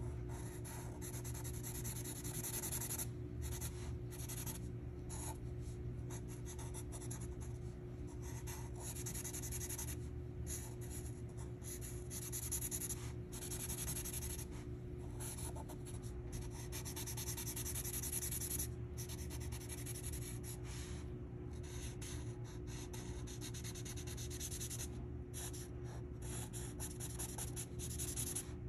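Sharpie fine-point marker scratching across paper as letters are coloured in: many short strokes with brief pauses between them, over a steady low hum.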